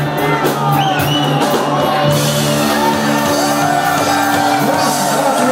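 A live band playing in a large hall, with keyboard, drums and electric guitar, and shouts from the crowd. The regular drum beat drops out about two seconds in, leaving held chords.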